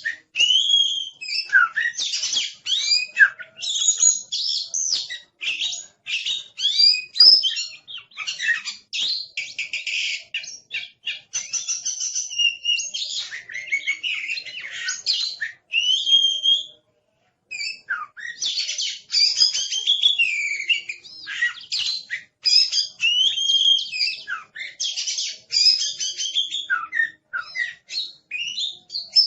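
Oriental magpie-robin (kacer) singing a loud, fast, varied song of sharp whistles, slurred notes and chattering trills, almost without a break, pausing for about a second a little past halfway.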